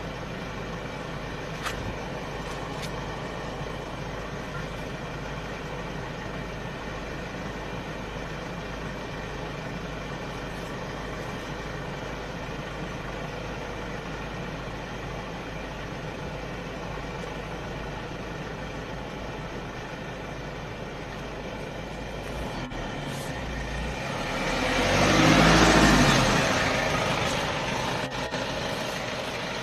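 Motor vehicle engines idling steadily in a stopped line of traffic. Near the end one engine grows much louder over a couple of seconds and fades again.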